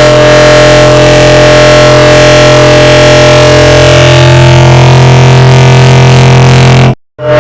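The 'bruh' meme sound effect stacked on itself countless times, merged into one very loud, steady drone of fixed pitches with no word to be made out. It cuts off abruptly near the end.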